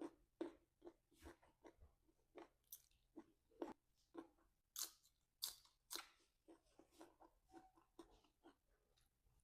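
A person biting and chewing raw, crisp vegetables (lalapan): a steady run of crunches about every half second, the sharpest bites about five to six seconds in, easing into softer chewing near the end.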